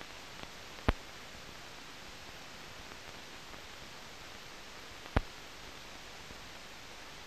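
Steady hiss of an old optical film soundtrack, with two sharp clicks about four seconds apart, the first about a second in.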